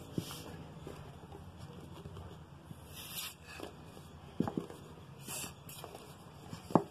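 A plastic toilet-cleaner squeeze bottle rigged as a hand balloon pump being squeezed and released: about three short puffs of air rushing through, a couple of seconds apart, with plastic clicks and crackles from the bottle, the sharpest click near the end. Each squeeze pushes air down the tube into the balloon, which the bottle takes in again through its holes when released.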